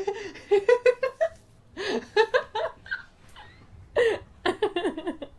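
Hearty, high-pitched laughter in quick pulses, coming in about three bouts with short breaks between them.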